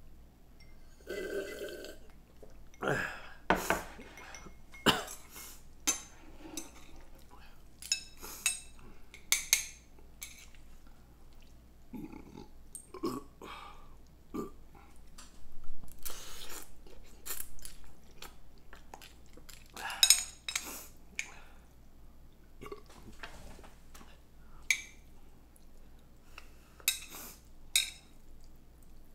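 Close-miked eating of ramen noodles: irregular chewing and mouth noises with utensils clinking against the bowl, and a short low burp about a second in.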